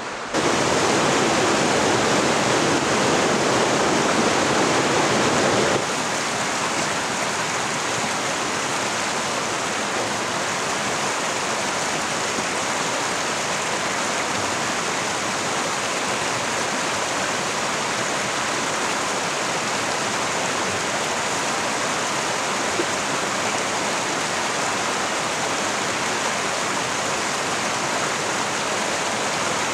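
Water of a rocky mountain creek rushing over boulders: a steady rushing noise that steps down to a lower level about six seconds in.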